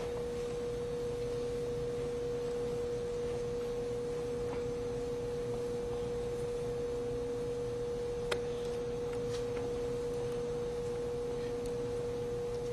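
A steady, unchanging pure tone with a fainter lower tone beneath it, and one faint click about eight seconds in.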